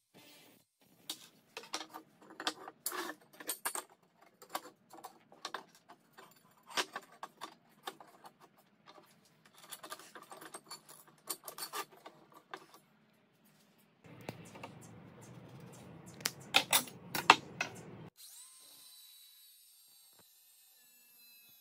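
Steel tubes, rod and washers clattering and knocking as they are handled and set down on a wooden workbench, in irregular clusters of sharp clicks, with a few louder knocks a few seconds before the end. In the last few seconds an angle grinder's motor runs with a faint, steady high whine.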